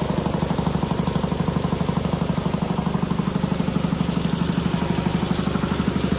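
Champion 10 HP electric piston air compressor running steadily just after start-up, its pump pulsing in a rapid, even beat.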